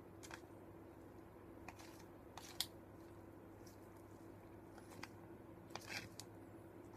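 Faint, scattered clicks and scrapes of a fork stirring instant noodles in a paper cup, over a low steady room hum. The sharpest click comes about two and a half seconds in, and a few more fall close together near the end.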